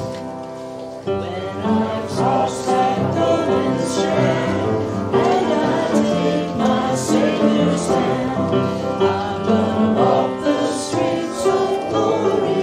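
Church hymn sung by a group of voices, with held keyboard chords underneath; the singing starts about a second in.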